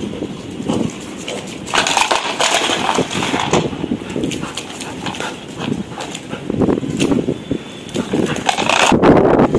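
A Labrador puppy's sounds at play, with irregular clicks and knocks throughout.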